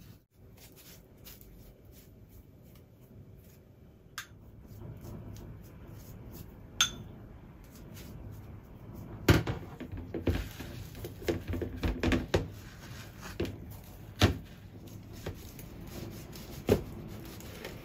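Knocks and taps of food preparation at a kitchen counter, among them a knife cutting down onto a cutting board. The knocks are sparse at first, then come in a quick cluster from about halfway through, with a few more near the end.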